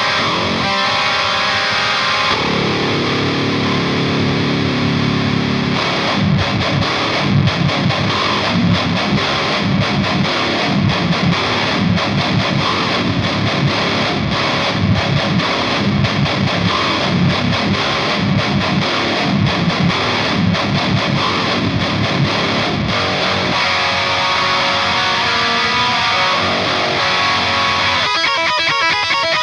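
Heavy distorted electric guitars played through a Diezel VH4 tube amp in a metal song, with drums. About six seconds in, fast, dense low drum hits come in under the guitars, and near the end the sound turns choppy and stuttering.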